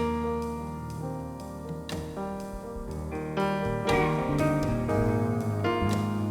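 Instrumental background music: gentle piano with plucked strings, notes changing about once a second.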